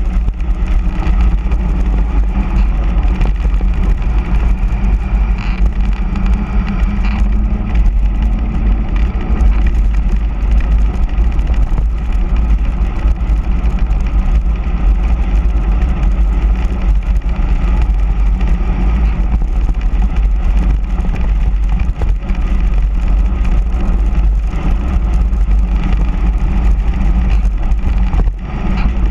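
Wind buffeting the microphone of a handlebar-mounted camera as a mountain bike descends fast on asphalt: a loud, steady low rumble mixed with the hiss of the rolling tyres.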